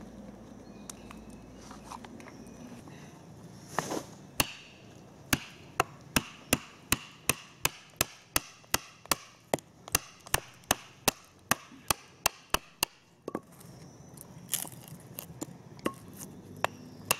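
A wooden baton knocking on a knife's spine to split wood, a regular run of sharp knocks about two or three a second. The knocking begins about four seconds in and stops briefly about three quarters of the way through before starting again.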